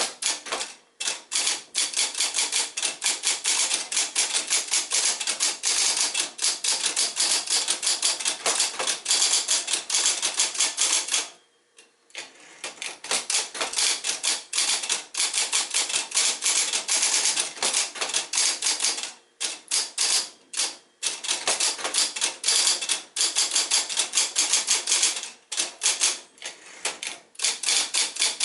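Sears Electric 1 portable electric typewriter, built by Nakajima, typing in rapid runs of keystrokes, with about a second's pause about eleven seconds in and a few brief breaks later.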